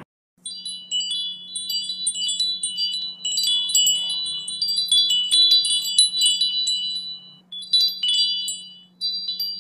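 Wind chimes tinkling: many quick, overlapping high ringing strikes over a faint steady low hum, breaking off briefly twice near the end.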